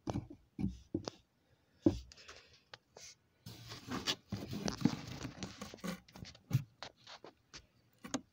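Cardboard handled and rubbed close to the microphone: scattered taps and knocks, with a stretch of scraping and rustling around the middle.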